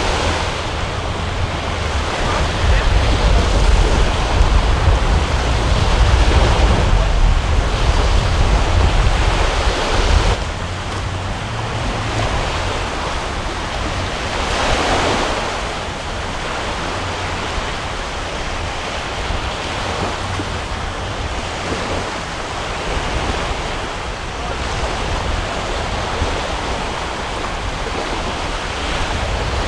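Wind rumbling on the microphone over the steady wash of surf. The rumble is heaviest for the first ten seconds and drops off abruptly, and a louder wash of surf comes about fifteen seconds in.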